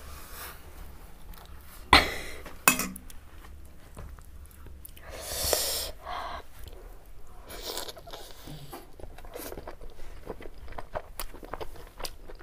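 A person eating a big pork momo by hand: a noisy bite into the juicy dumpling about five seconds in, then wet chewing with many small smacking clicks. About two seconds in, two sharp clinks of a metal spoon knocking against a ceramic bowl are the loudest sounds.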